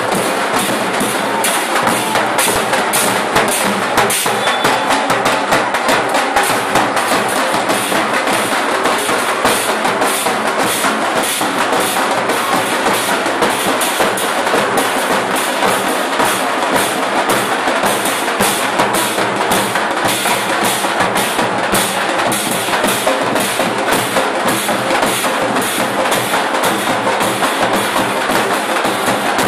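A group of large drums played together in a loud, fast, steady rhythm without a break: street drumming.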